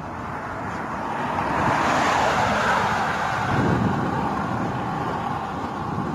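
A road vehicle passes by, its noise swelling to a peak about two seconds in and then fading away, with wind buffeting the microphone underneath.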